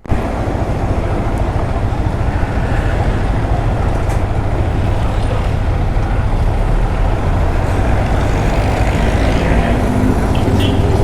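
Motorcycle riding noise picked up by a lapel mic inside the rider's helmet: a steady, loud wind rumble over the engine and road sound.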